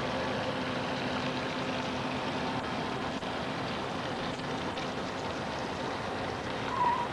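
Steady rushing noise of wind on the microphone, with a faint hum fading out over the first couple of seconds and a brief high chirp near the end.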